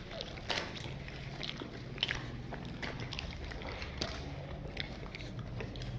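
Chewing and tearing of thick Kashmiri naan: scattered small mouth clicks and smacks, about one or two a second, over a steady low hum.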